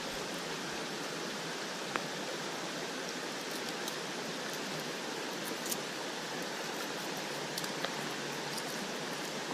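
Steady, even hiss of outdoor water, with a few faint ticks and taps scattered through it.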